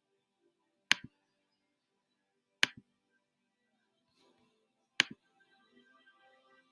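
Three sharp clicks close to the microphone, about two seconds apart, each followed at once by a softer second click, over faint, calm background music.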